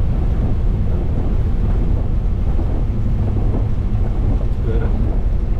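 Steady low rumble of airflow and engine noise inside a Boeing 737-800 cockpit, with a brief faint tone near the end.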